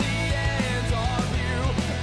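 Background music with a steady beat, a low bass line and a gliding melody over it.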